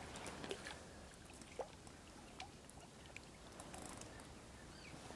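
Faint small splashes and soft clicks from a hooked crucian carp being played at the surface on a fishing pole, with a few short chirps.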